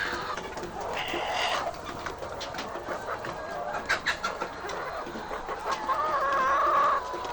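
Chickens clucking and calling, with short calls about a second in and a longer drawn-out call near the end, among scattered sharp clicks.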